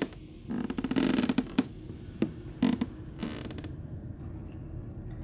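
Creaking and knocking: a drawn-out creak about half a second in, then three sharp knocks and a second, shorter creak, after which a low steady rumble sets in.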